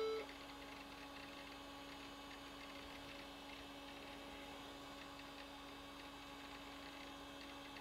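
Faint, steady electrical hum from a running Macintosh LC 630 and its setup, after a brief electronic beep right at the start.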